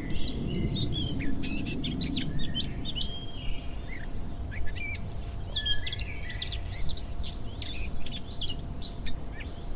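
Small garden songbirds chirping and singing, quick runs of varied high notes in two long phrases, over a steady low rumble.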